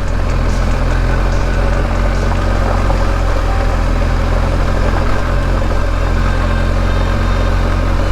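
BMW R1250 GS Adventure's boxer-twin engine running at a steady, unchanging pitch, with a rushing noise over it.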